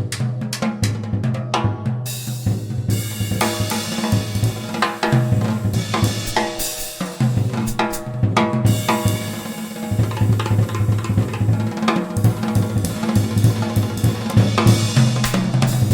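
Music with a full drum kit and a bass line, steady and rhythmic.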